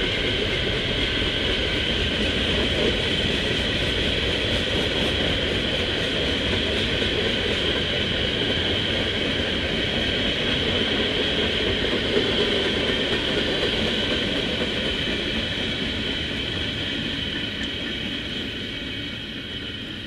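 Covered hopper cars of a freight grain train rolling past, with a steady high-pitched tone over the rolling noise. The noise fades over the last few seconds as the end of the train goes by.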